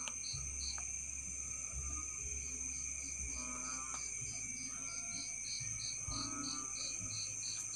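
Night insects: a cricket chirping steadily about three times a second over a continuous high insect drone, with a low rumble of handling noise in the first few seconds.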